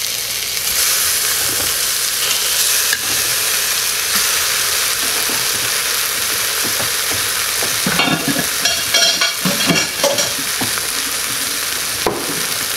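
Browned round steak sizzling steadily in the hot stainless inner pot of an Instant Pot, on the pot's remaining heat with the sauté setting switched off. A cluster of clinks and clatter from a plate and utensils comes about eight to ten seconds in, with one more click near the end.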